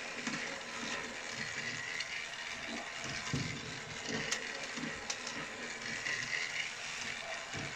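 Battery-powered toy train engine running round a plastic track, its small geared motor whirring steadily, with a few light clicks partway through.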